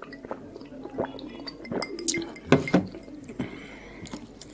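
Close-miked sipping and swallowing of a drink from a glass: a string of short wet slurps and gulps, with two louder ones about two and a half seconds in.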